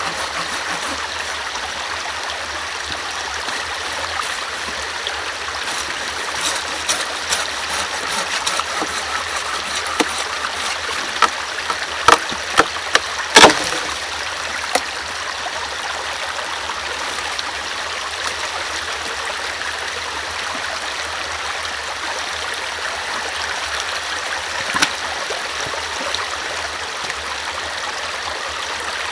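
Shallow forest stream running steadily. Over it comes a run of sharp knocks from a machete cutting wood, the loudest about halfway through, then one more knock later on.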